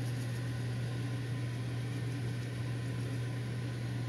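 Steady low hum with an even hiss over it, unchanging throughout, with no distinct knocks or clatter.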